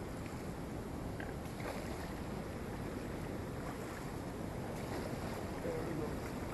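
Steady rushing of a fast river current close to a waterfall, with low wind rumble on the microphone.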